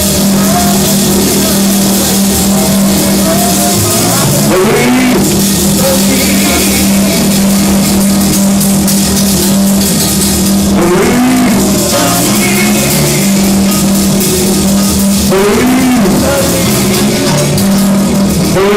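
Church praise band music played loudly over a steady held low note, with drums, and a voice singing short rising phrases about every five or six seconds.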